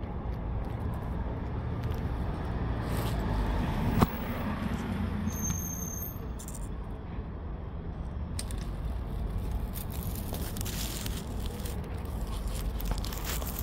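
Steady low rumble of street traffic, with one sharp click about four seconds in.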